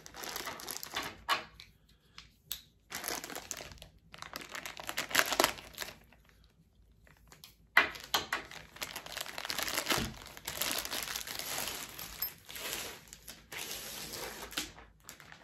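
Clear plastic wrap crinkling and tearing as it is pulled off a fly-rod case, in uneven bursts. There is a short pause about halfway through, then a sharp snap of plastic.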